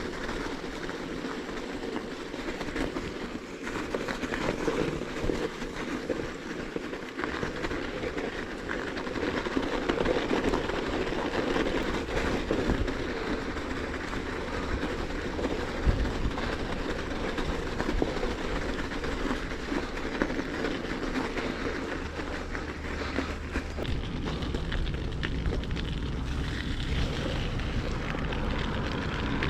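Bicycle riding over crusted snow: a steady crunching rumble from the tyres with scattered clicks, and a deeper low rumble joining about halfway through.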